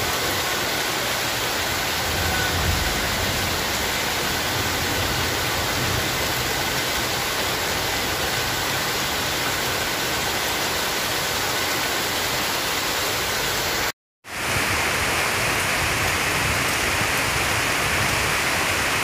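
Steady heavy rain, an even hiss of falling water. It cuts out for a split second about fourteen seconds in and comes back with a brighter, hissier tone.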